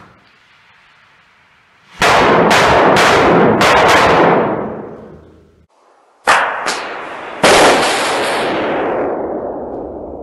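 Multi-shot firecracker grenade going off in an enclosed room. A lit fuse hisses faintly for about two seconds, then a quick run of loud bangs sets in, each with an echoing tail that fades over a couple of seconds. After a brief gap a second run of bangs starts about six seconds in and trails off near the end.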